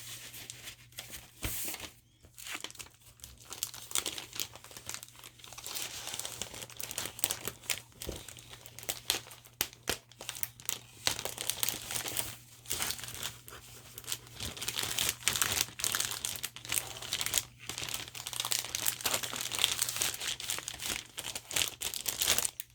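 Packaging crinkling and rustling as craft purchases are handled, with many irregular sharp crackles and no pauses of any length.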